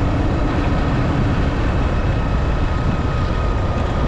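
Steady engine and road noise of a moving motor vehicle, heaviest in the low end, with a faint steady whine throughout.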